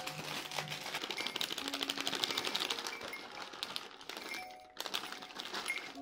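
Crunchy chocolate cereal clusters pouring out of a plastic bag into a glass mug: a dense run of small rapid clicks and rattles. It breaks off briefly near the end, then resumes for a moment.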